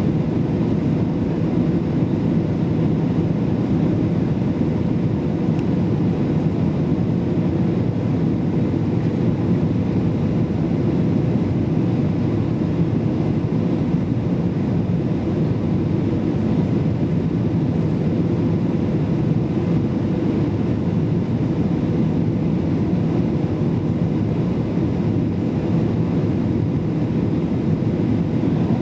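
Steady cabin noise inside a Boeing 737-800 in flight: the low rush of airflow and its CFM56 engines, with a faint steady hum above it.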